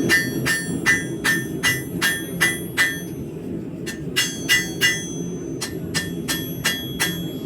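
Hand hammer striking a hot high-carbon steel knife blade on an anvil: an even run of ringing blows, about two and a half a second, that pauses briefly about three seconds in and then resumes, over a steady low rush.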